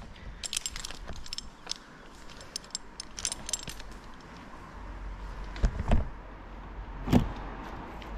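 Metal climbing and rigging hardware clinking and jingling on a tree climber's harness, in quick clusters of small clicks, followed by three dull knocks near the end.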